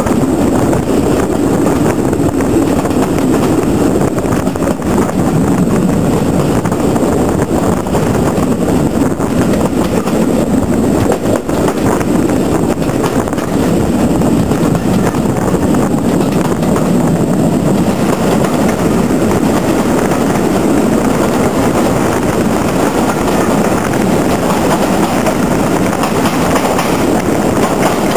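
Heritage railway train running along the track: a steady rumble of wheels on rails.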